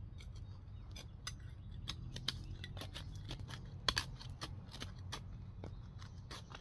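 Small hand trowel digging into loose, stony soil: irregular scrapes and clicks of the blade against grit and stones, the sharpest about four seconds in.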